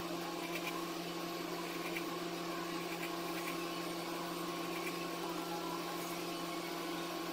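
A steady low hum with a few held tones, even throughout and with no distinct strokes or taps.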